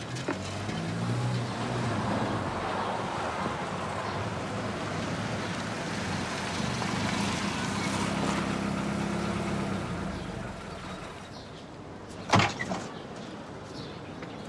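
A car drives up, its running noise swelling and then fading away, followed by a single sharp slam of a car door about twelve seconds in.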